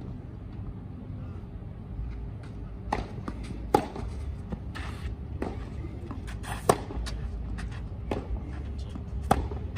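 Tennis rally on a clay court: racquet strings striking the ball back and forth, with fainter ball bounces between. The nearer player's hits are the loudest, about every three seconds.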